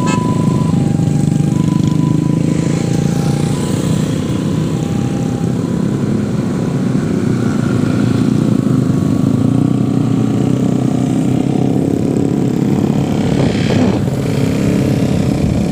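Motorcycle engines running while riding in a group, with steady engine and road noise. For the first five seconds a two-tone electronic horn alternates high and low, about one tone a second, then stops. A few knocks come near the end.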